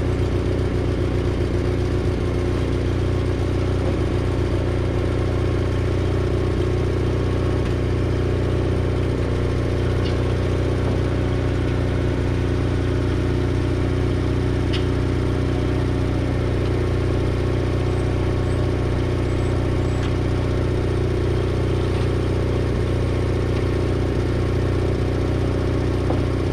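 Case 1816C skid steer's gasoline engine running steadily on half choke, which keeps it from stalling.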